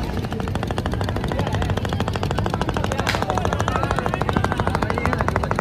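Motorboat engine running with a fast, even putter. A single sharp crack comes about three seconds in.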